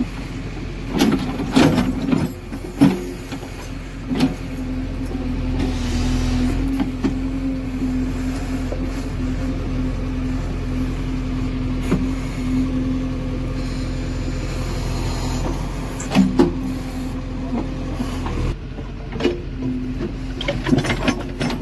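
JCB 3DX backhoe loader's diesel engine running steadily under digging load, with sharp clanks and knocks as the backhoe bucket scrapes and breaks out soil and stones: a cluster about a second in, another around sixteen seconds, and more near the end.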